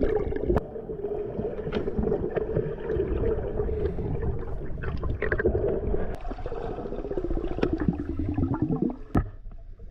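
Muffled underwater sound: water noise and a low rumble with the steady hum of a boat motor carried through the water, which drops in pitch and fades about nine seconds in. Scattered sharp clicks.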